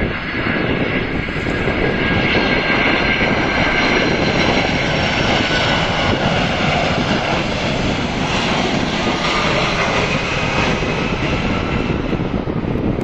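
Boeing 747-400 landing: the loud jet noise of its four Pratt & Whitney PW4056 turbofans as it passes low overhead on final approach and descends over the runway. The noise swells in the first second or two and then holds, with a steady high whine over it.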